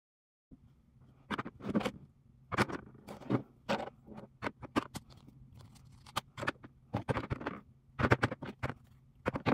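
Makeup tubes, compacts and bottles being set down and shuffled into a clear plastic organizer bin: irregular clicks, taps and clatters of plastic on plastic, some in quick clusters, starting about half a second in.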